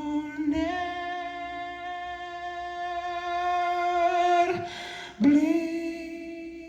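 Live music: a male singer's voice holding one long, steady note, then moving onto a new sung word about five seconds in.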